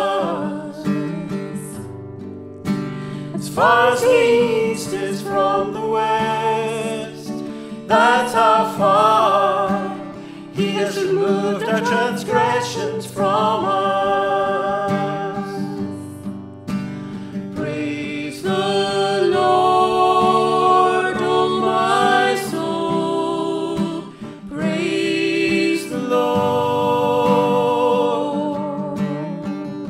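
Worship song: singing in held, wavering phrases over guitar chord accompaniment.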